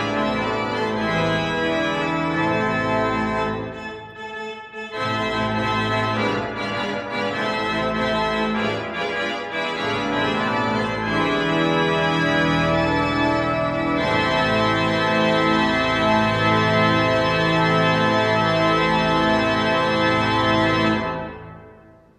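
Three-manual church organ played with full, sustained chords. The music thins briefly about four seconds in, then grows fuller and ends on a held final chord that is released near the end and dies away.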